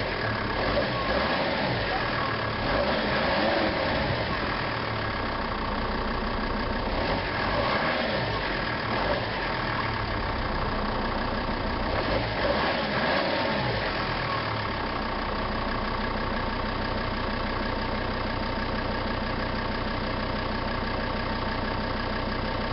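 Volvo S60 D5 five-cylinder diesel heard at the tailpipe, idling with three short revs, about 3, 8 and 13 seconds in, each rising and falling back to idle. After the third rev it settles to a steady idle.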